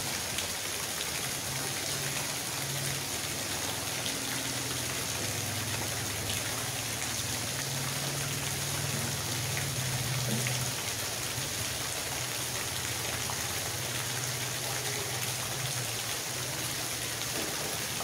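Steady rain falling on wet pavement and puddles, with a small stream of water pouring down and splashing into a puddle close by.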